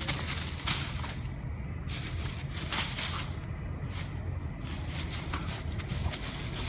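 Dry fallen leaves rustling and crunching in irregular crackles as a dog noses through them after a ball, over a low steady rumble.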